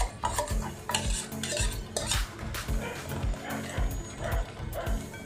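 Steel spoon stirring and scraping a thick masala paste frying in oil in a metal pot, with a light sizzle, over a regular low beat about twice a second.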